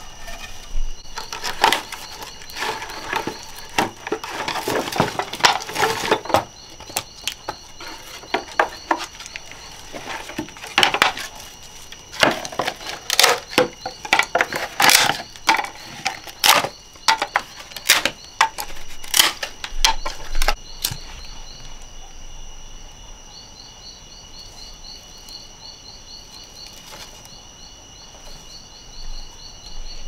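Dry sticks and bamboo pieces knocking, cracking and scraping on leaf litter as they are broken and laid for a campfire, dense for about the first twenty seconds and then sparse. Crickets trill steadily behind, one in quick even pulses.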